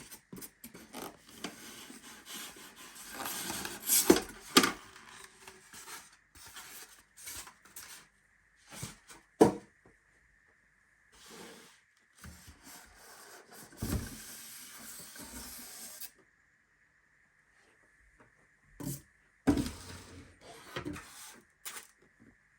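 Packaging being handled while a coffee machine is unboxed: irregular rustling and scraping, with a few sharp knocks and clacks, the loudest about four seconds in, about nine seconds in and near the end.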